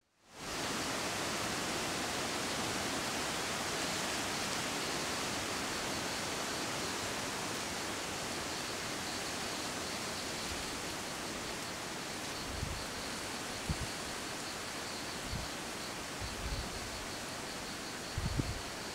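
Steady rainforest ambience: an even rushing hiss, with a faint high pulsing trill throughout and a few short low bumps in the last seven seconds.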